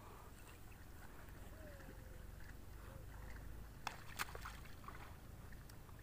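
Faint water sloshing as a water buffalo wallows in a muddy pond, over a steady low rumble. Two sharp clicks come about four seconds in.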